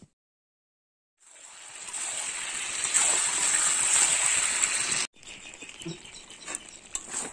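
Chicken and potato curry frying in hot oil in a pan: a sizzle that starts about a second in, builds and holds for about four seconds, then cuts off suddenly. After that comes quieter sizzling with a few light knocks of the spatula against the pan.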